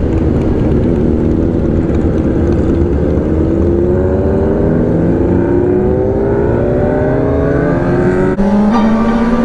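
Motorcycle engine accelerating, its pitch rising steadily for several seconds, then breaking off briefly near the end before settling lower, over a steady low rumble.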